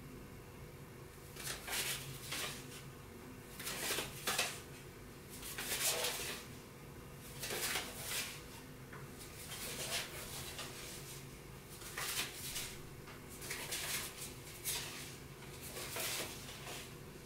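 Playing cards being handled: short, soft rustles and scrapes of thin card about every one to two seconds, over a steady low room hum.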